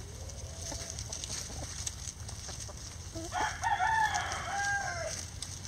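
A rooster crows once, a drawn-out cock-a-doodle-doo of about two seconds starting a little past halfway. Before it, chickens cluck softly now and then.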